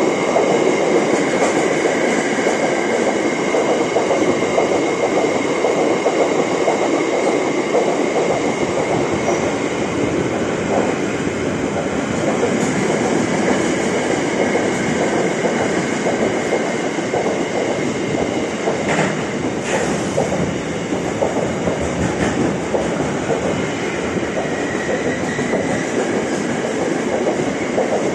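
Intermodal container freight train's wagons rolling past at speed, a steady loud rumble and rattle of steel wheels on the rails. A faint high ringing tone sits over it, and there are a couple of sharp knocks about two-thirds of the way through.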